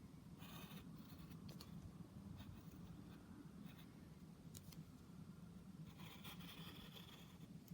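Faint scratching of a pen or marker stroking across paper, in two short spells about half a second in and again near the end, over a steady low room hum.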